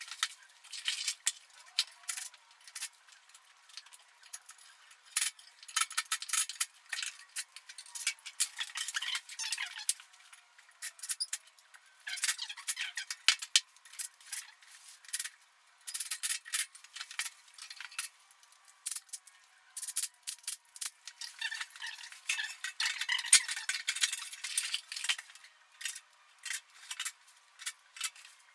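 Irregular clinks, knocks and rattles of furnace blower motors, wiring and a capacitor being handled and set down on a plywood board. The sound is thin, with no bass.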